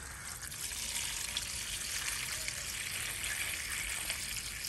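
A thin stream of water pouring steadily into a stainless steel bowl, splashing onto a giant freshwater prawn and the water already in the bowl as the prawn is rinsed before cutting.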